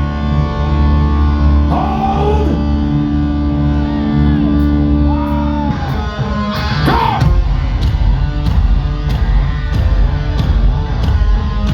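Hard rock band playing live, heard loud from the audience: sliding, bending guitar notes over a held low chord, then the drums come in with a steady beat about seven seconds in.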